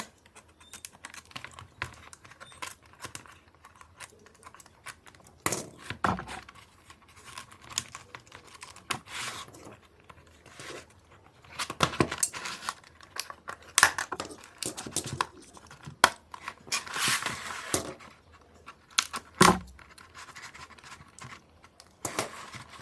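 Packaging being opened by hand: irregular clicks and taps with bursts of tearing and crinkling.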